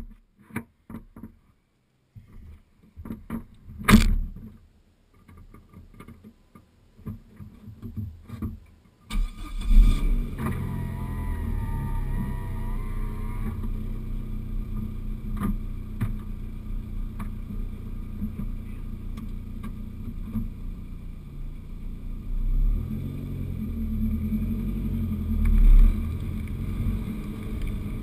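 A few scattered knocks and one sharp thump, then the Dodge Neon SRT-4's turbocharged 2.4-litre four-cylinder starts about nine seconds in and settles into a steady idle. Two brief rises in engine sound come near the end as the car pulls away.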